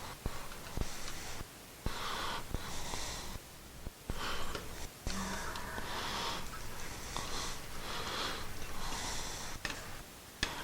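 A man breathing hard through his nose close to the microphone, one noisy breath about every second, with a few light clicks and knocks of the switch and wires being handled.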